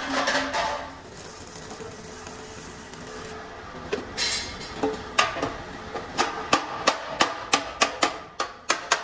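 The crackle of a stick-welding arc on sheet steel dies away about a second in. Then a chipping hammer knocks slag off the fresh weld in sharp metallic taps, coming about three a second over the last few seconds.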